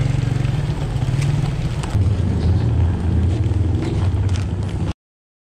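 Hard plastic wheels of a rolling suitcase rattling and rumbling steadily over rough concrete, with occasional clicks as they cross cracks. The sound cuts off abruptly about a second before the end.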